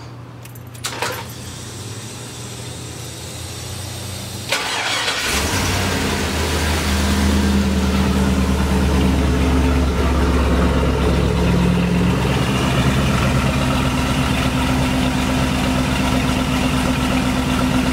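5.3 L LS V8 exhaust through Thrush Turbo mufflers and an H-pipe: the engine starts about four and a half seconds in and settles into a steady, real humble idle.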